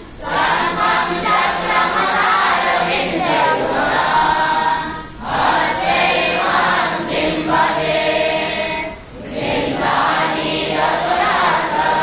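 A group of young boys reciting Vedic mantras in unison, pausing briefly about five and nine seconds in between verses.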